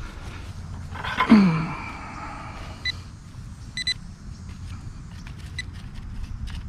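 Short, high electronic beeps from a metal detector signalling a target in the dug hole, two brief ones about three and four seconds in. About a second in, a louder sound falls in pitch over half a second.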